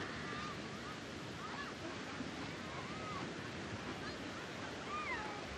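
Steady wash of ocean surf breaking on a beach, with faint short high calls, like distant beachgoers' voices, now and then.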